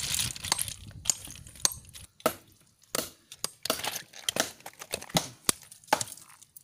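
Hard sea snail shells clicking and cracking in quick, irregular bursts as they are raked by hand and struck with a claw hammer on rock.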